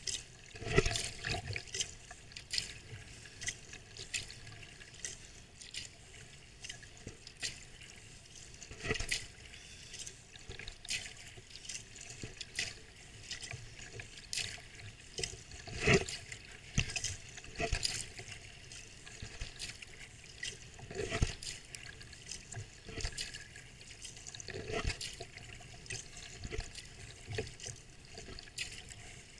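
Small waves lapping and slapping against a sea kayak's hull as it moves through choppy water, in irregular sharp splashes with a low wash between them. The loudest slaps come about a second in, about nine seconds in and about sixteen seconds in.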